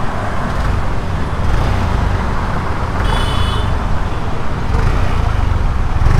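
Yamaha Aerox 155 scooter's 155 cc single-cylinder engine running at a standstill and being revved, heard close at the exhaust.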